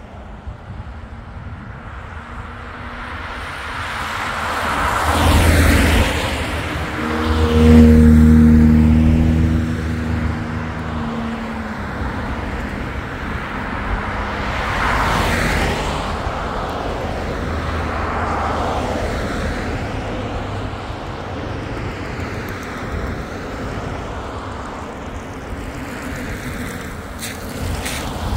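Road traffic: several vehicles passing by one after another, each rising and falling in level. A heavier one with a low engine hum goes by about eight seconds in and is the loudest.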